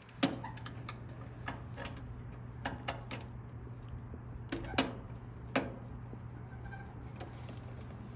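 Irregular light clicks and knocks, a dozen or so, two of them sharper about five seconds in, over a steady low hum.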